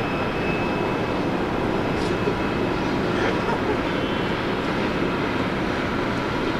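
Jet airliner engines running: a steady, even rush of noise, with a faint high whine over it in the first second or so.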